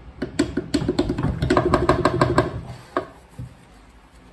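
Rapid metallic clicking from a hand tool undoing the screws of a KTM 450 EXC-F clutch cover, about ten clicks a second for two seconds, then a single click about three seconds in.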